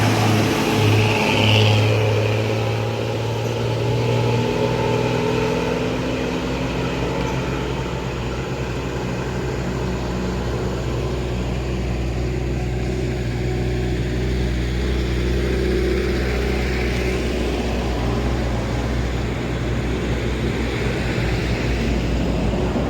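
Buses' diesel engines and exhausts running at speed on the road. A strong low engine drone fills the first few seconds, then settles into a steady rumble with road and wind noise.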